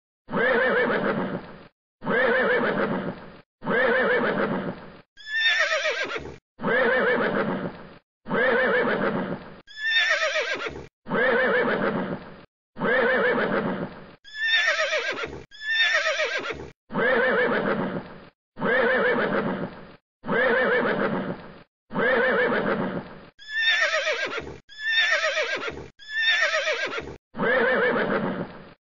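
Recorded horse whinny played over and over, about every second and a half, each call cutting off abruptly before the next.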